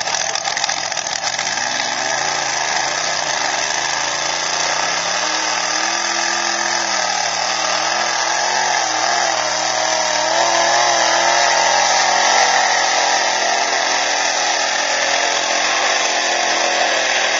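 Two-wheel-drive pulling tractor's engine running at full throttle as it drags the weight-transfer sled down the track, a loud, high-pitched scream. Its pitch climbs over the first few seconds and then holds steady.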